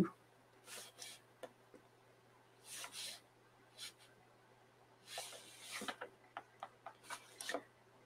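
Pen tip scratching on sketchbook paper in a series of short, faint strokes with small gaps between them, as small marks are dabbed in.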